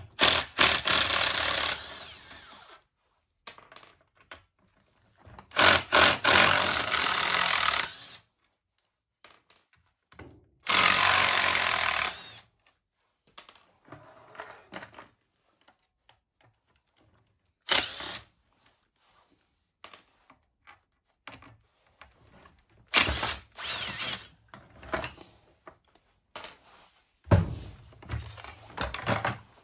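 Cordless drill-driver spinning out screws from a chainsaw: three runs of about two seconds each, then scattered clicks and knocks from the saw being handled, with a few shorter bursts and heavier knocks near the end.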